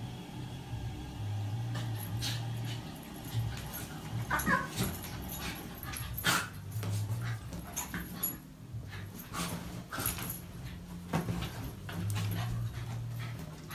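A dog gives a brief whine about four seconds in, amid light knocks and scuffling as pets spar, over a low steady hum.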